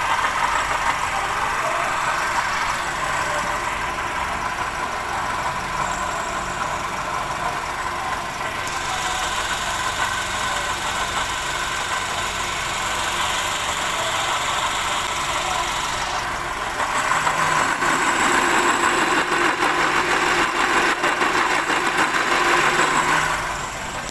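Perodua Bezza engine running at idle with an abnormal noise coming from the water pump, the sign of a failing water pump. It gets louder for the last third.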